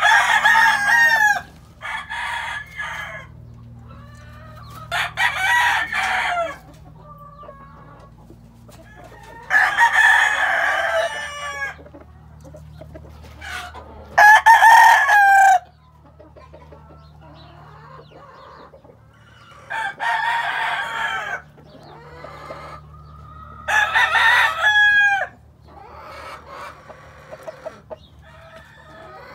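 Gamefowl roosters crowing again and again, about seven loud crows each lasting a second or two, a few seconds apart, with the pitch dropping at the end of each crow.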